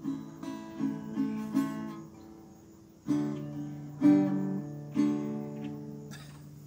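Acoustic guitar strummed: a run of quick chords, then three single chords about a second apart, the middle one the loudest, each left to ring out as the song ends.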